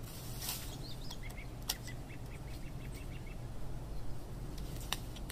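A small bird chirping a quick run of short notes over a steady low outdoor rumble, with a couple of sharp clicks, one early and one near the end.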